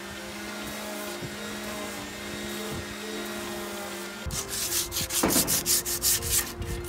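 Electric orbital sander running against a painted wooden bed post with a steady hum. About four seconds in, hand sanding takes over: sandpaper is rubbed back and forth over wood in quick, louder strokes, about five a second.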